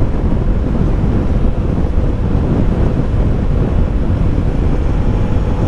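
Wind buffeting the camera microphone while riding a Yamaha Sniper 155 motorcycle: a loud, steady rushing, with the engine's steady drone faint beneath it.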